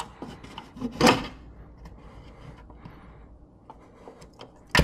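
Flat screwdriver and fingers working a loosened steel knockout slug free from an electrical panel box: a sharp metal knock about a second in and another near the end, with small clicks and scrapes between.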